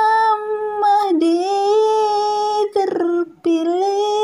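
A single high voice singing slow, long-held notes of a chanted line, with a short break for breath about three seconds in.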